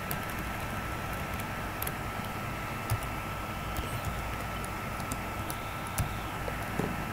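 Computer keyboard keystrokes, a dozen or so sharp clicks at irregular intervals, over a steady hiss with a faint high steady whine.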